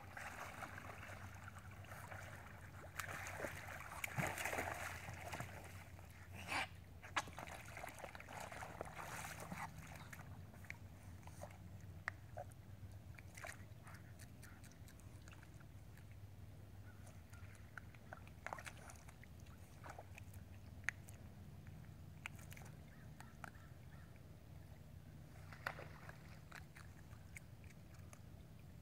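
North American river otters splashing and sloshing in shallow lake water as they handle a catfish, busiest in the first ten seconds with a few sharper splashes, then faint scattered clicks as they feed at the water's edge.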